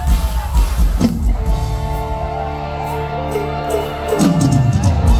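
Live mor lam band music: sustained instrumental notes over a steady beat, with a sliding note that falls in pitch near the end.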